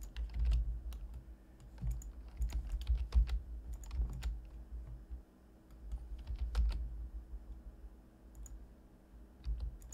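Computer keyboard and mouse being worked: irregular clicks and taps in uneven bursts, each with a dull low thump, sparser after about seven seconds, over a faint steady hum.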